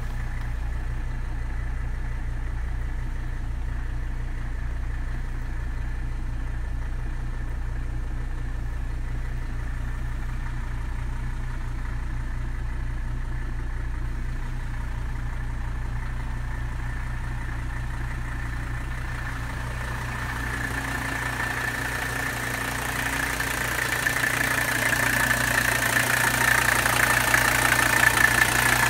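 1983 Mercedes-Benz 300SD's five-cylinder turbo-diesel idling steadily, warming up after a cold start. It is muffled as heard from inside the cabin, then louder and clearer over the last few seconds at the open engine bay.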